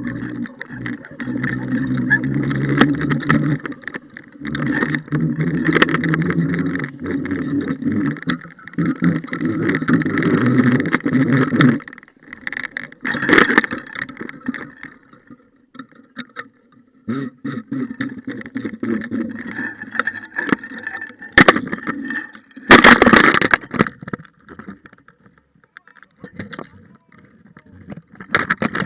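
Water rushing and gurgling heard through an action camera's waterproof housing as the fishing rig moves underwater. It surges in waves, then turns patchier, with a couple of sharp knocks of the housing against something about two thirds of the way through.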